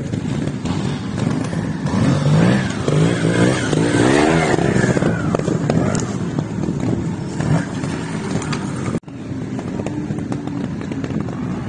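Trials motorcycle engine revving up and down in repeated throttle bursts as the bike climbs a dirt slope, loudest a few seconds in. The sound cuts out for an instant about nine seconds in.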